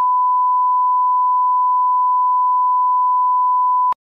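Television colour-bar test tone: one steady, pure beep held unbroken, which cuts off suddenly just before the end.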